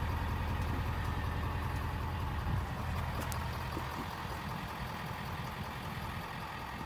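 2020 Ford F-450 dual-rear-wheel pickup's engine idling, a steady low hum that drops a little about two and a half seconds in.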